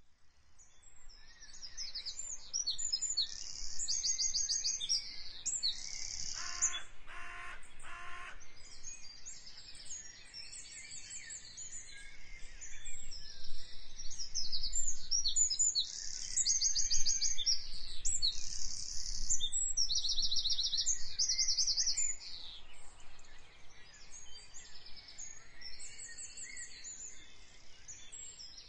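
A chorus of many songbirds singing, dense overlapping chirps and fast trills. About six seconds in, a lower call repeats several times for about two seconds.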